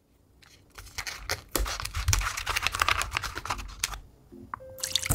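A plastic pouch of peeled quail eggs crinkling and crackling as it is handled and opened. The rustle is dense and irregular, thins out about four seconds in, and loud noise starts again right at the end.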